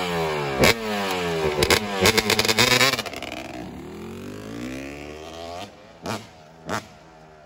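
Dirt bike engine running loud, its pitch falling steadily over about three seconds, then fading to a fainter rise and fall of revs. Two short thumps follow near the end.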